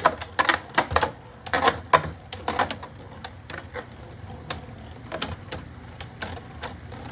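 Two Beyblade Burst spinning tops battling in a plastic stadium: rapid sharp clicks as they collide, close together at first and then sparser as the battle goes on.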